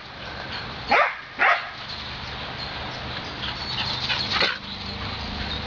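Border collie barking twice in quick succession about a second in, then a steady low rumble with a few fainter, shorter barks a little later.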